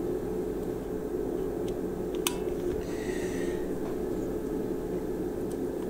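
Steady low electrical hum, with a small click about two seconds in as a test-lead clip is attached to a power connector, and a brief high hiss a second later.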